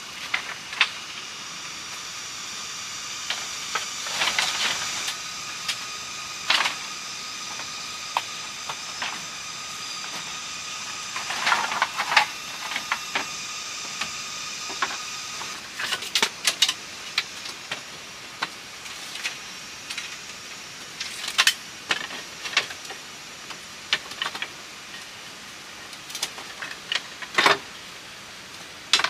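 Bamboo poles knocking and clattering as they are handled and fitted, in scattered sharp knocks. A steady high drone sits behind them and stops about halfway.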